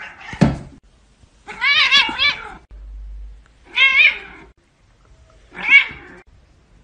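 A domestic cat meowing three times, each call drawn out and wavering up and down in pitch, the last one shortest. A single thump sounds just before the first meow.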